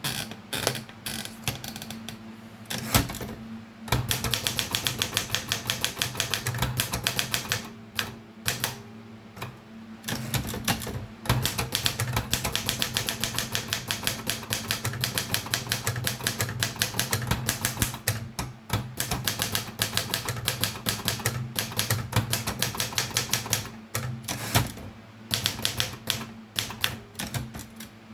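Erika 32 portable manual typewriter being typed on: fast runs of key strikes lasting several seconds each, broken by short pauses. A steady low hum sits underneath.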